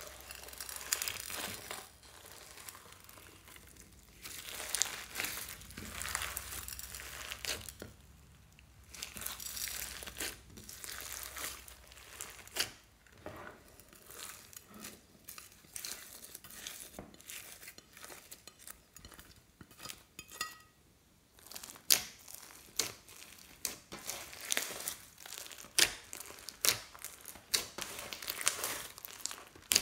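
Hands kneading, squeezing and stretching a large glossy slime mixed with beads and glitter, giving an irregular run of sticky crackles, clicks and squishes.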